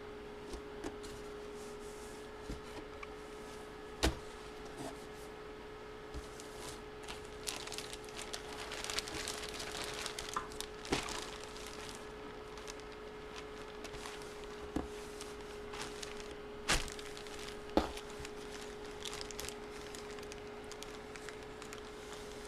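Trading cards being handled on a table: scattered light taps and clicks as cards are set down, with soft rustling around the middle, over a steady electrical hum.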